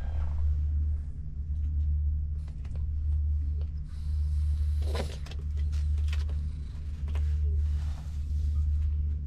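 A black cat purring, a deep steady rumble that swells and fades with each breath as it is stroked. There is a brief rustle about halfway through.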